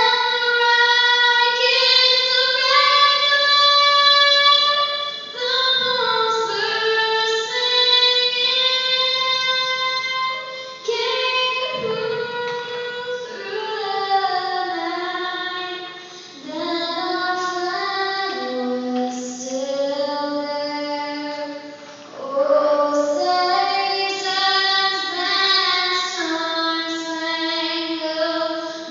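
A young girl singing the national anthem solo into a handheld microphone, holding long notes that step up and down in pitch, with short breaks between phrases.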